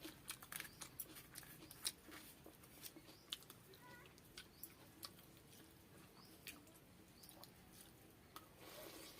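Faint close-miked eating: a person chewing, with short wet mouth clicks that come thick for the first five seconds and then thin out.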